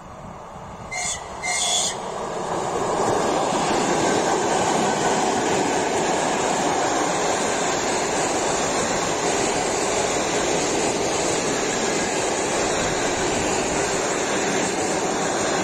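ED4M electric suburban train giving two short high-pitched horn blasts as it approaches, then passing close by at speed with a steady loud rush of wheel and rail noise that builds and holds.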